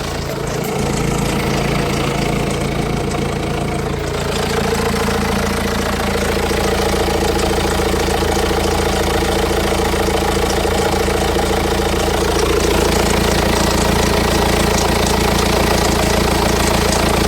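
BMW 118d's four-cylinder diesel engine idling steadily, making a noise that the owner suspects is the timing chain.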